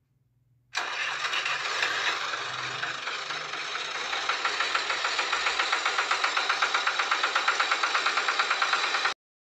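Tractor engine starting up and then running with a fast, even chug of about eight beats a second. It cuts off abruptly near the end.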